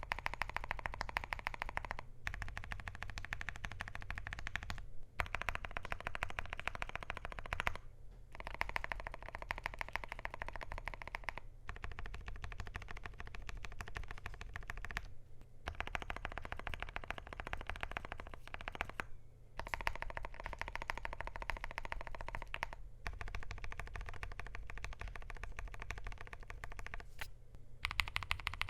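Fast typing on a KBDfans Tofu65 2.0 mechanical keyboard with lubed, filmed WuqueStudio WS Morandi linear switches, a polycarbonate plate, PBT keycaps and case foam. The keystrokes clack in dense runs of a few seconds each, broken by short pauses.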